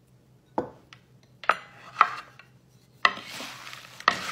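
Salad being tossed in a wooden bowl with wooden servers: about five sharp wooden knocks of the servers against the bowl, with leaves rustling during the last second or so.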